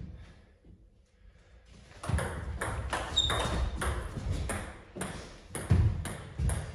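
Table tennis rally: the ball clicking off the bats and the table in quick succession, starting about two seconds in, with a heavier thump a little before the end.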